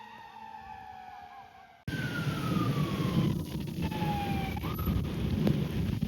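Fire apparatus siren in a slowly falling wail. After a sudden cut about two seconds in, another siren wail falls and then briefly rises again, over loud rumbling noise from water in the microphone during a thunderstorm.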